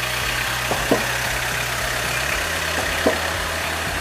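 A parked van's engine idling with a steady hiss, over background music with a low bass line. Two short sharp sounds come about a second in and again about three seconds in.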